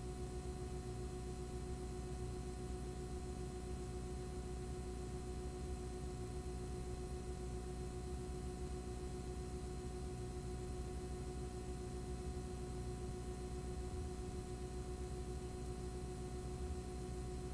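Steady electrical hum and hiss: several fixed tones, the strongest a mid-pitched drone, over a low rumble, with no change in pitch or level.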